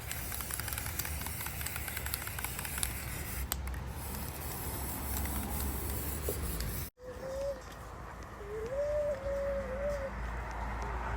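An even rustling hiss, then after an abrupt cut about seven seconds in, a low wavering animal call sounds three times.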